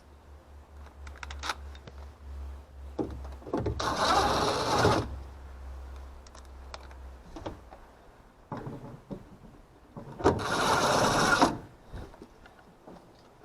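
Two bursts of a small mechanical tool, each about a second long, with scattered clicks between them. A low hum underneath dies away about halfway through.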